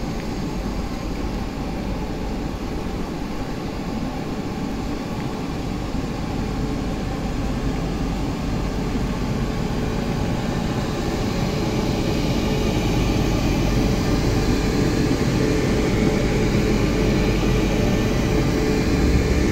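Taiwan Railways Class E1000 push-pull electric express train starting away from a station at walking pace, its running noise growing gradually louder as it gathers speed. A steady hum comes in about halfway through, and a faint rising whine follows near the end.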